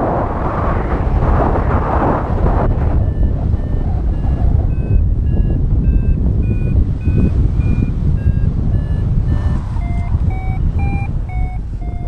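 Paragliding variometer beeping about twice a second, its pitch wandering up and down: the vario's climb tone, signalling the glider is rising in lift. Underneath runs a steady rush of airflow on the camera.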